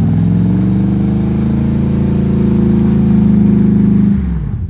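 Off-road 4x4 SUV engine revving hard under load as the vehicle climbs a steep muddy track. The revs are held high and creep up slightly, then drop away quickly about four seconds in.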